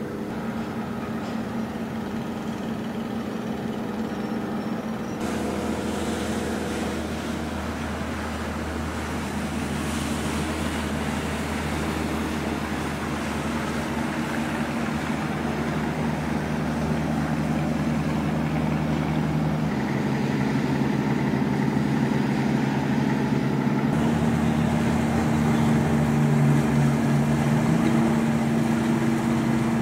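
Ship's diesel engines running with a steady low drone and several held tones, which change abruptly a few times, under a broad hiss of water.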